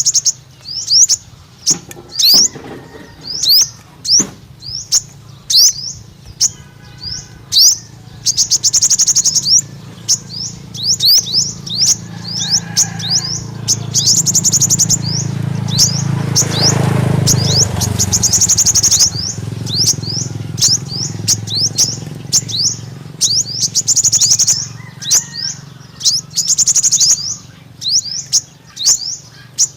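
A sunbird singing: a steady string of thin, high chirps, each sliding down in pitch, broken by several fast rattling trills. A low rumble of background noise swells in the middle.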